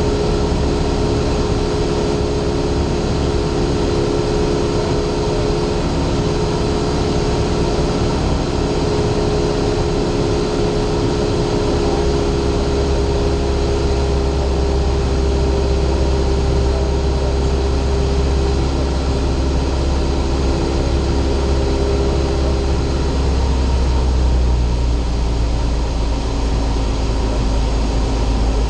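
Light single-engine propeller airplane's engine and propeller running steadily, heard from inside the cockpit, with a droning engine note over a low rumble. The engine note drops slightly about 23 seconds in.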